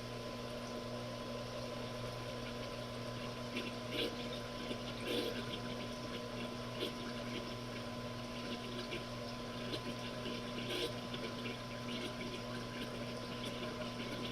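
Washing machine running with a steady motor or pump hum and water sloshing, with short irregular splashes every second or two.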